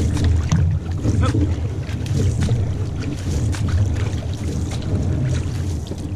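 Single-blade paddles splashing into the water at each stroke of a two-person outrigger canoe, with water rushing along the hull. A heavy low rumble of wind on a microphone fixed to the hull runs under it.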